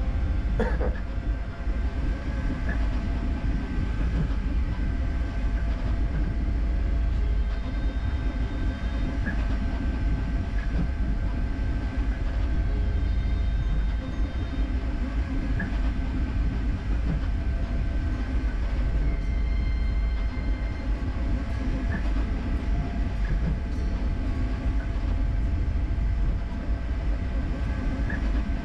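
Creality K1C CoreXY 3D printer running a fast print: a steady low rumble and hum from the machine, with short high whines from the motors coming and going every few seconds as the toolhead darts back and forth.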